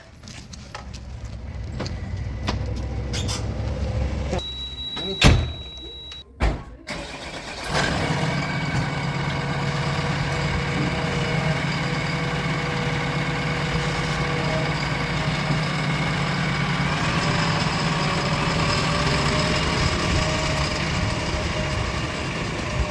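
Heavy diesel engine of earth-moving machinery running. It is quieter in the first few seconds, with two sharp knocks. From about eight seconds in it runs loud and even.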